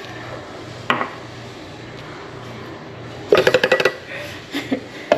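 A spice jar of powdered seasoning being shaken over a small ceramic bowl. It gives a quick, loud run of rattling taps lasting about half a second, after a single knock about a second in.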